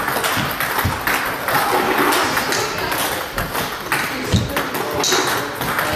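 Table tennis balls being hit in rallies: quick, irregular pocks of ball on paddle and table, overlapping from more than one table.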